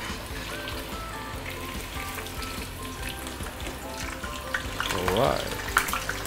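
Tofu deep-frying in a shallow pan of hot oil, sizzling steadily, with clinks of a metal spatula and spoon against the pan as the block is turned over, and a short rising sound about five seconds in. Background music plays underneath.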